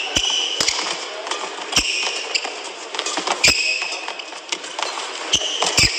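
Badminton rally: several sharp pops of rackets striking the shuttlecock at irregular intervals, with short high squeaks of court shoes gripping the court mat as the players change direction.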